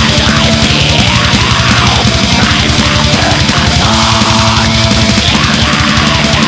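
Pagan black metal: distorted guitars over rapid, dense drumming.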